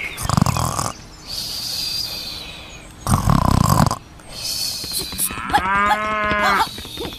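Cattle mooing: two short calls, then a longer drawn-out moo near the end.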